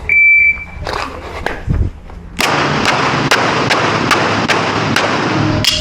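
Electronic shot-timer beep, one steady high tone under a second long. A string of handgun shots follows, about two to three a second, from a little past two seconds in.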